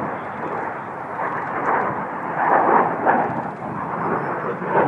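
Jet aircraft engine noise, a loud rushing sound that swells and eases, loudest about midway through.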